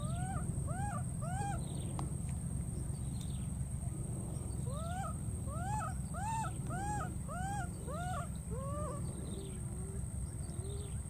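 Baby monkey crying with repeated high, arching coo calls, each rising then falling in pitch. There are three in the first second and a half, then a run of about eight from around five seconds in, trailing off into a few lower, shorter calls. A steady low rumble runs underneath.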